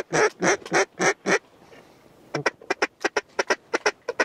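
Duck quacking: a run of about seven loud quacks, a pause of about a second, then a quicker string of shorter, softer quacks.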